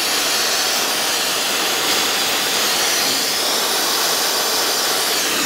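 A can of compressed duster air held upside down is sprayed in one continuous hissing blast, shooting out its cold liquid propellant to chill the hot supercharger shaft. The hiss stops abruptly at the very end.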